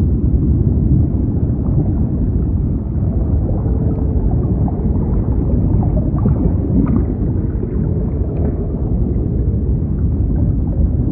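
Underwater ambience: a steady, deep rumble with faint scattered gurgles and small ticks over it.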